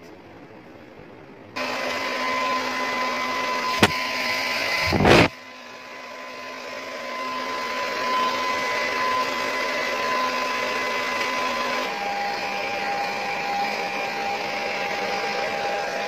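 Handheld hair dryer switched on about a second and a half in, running with a steady whine of its motor over rushing air. There is a sharp click and, just after it, a brief louder rush of air; about twelve seconds in the whine drops slightly in pitch.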